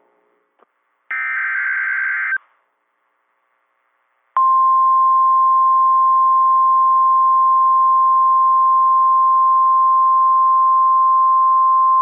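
NOAA Weather Radio alert signals: about a second in, a short burst of buzzing SAME digital header data lasting just over a second. From about four seconds in comes the steady, single-pitched 1050 Hz warning alarm tone, which announces a new warning.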